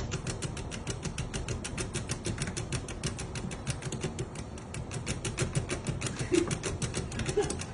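Pet drying box running: a steady fan noise with a rapid, even ticking about seven times a second.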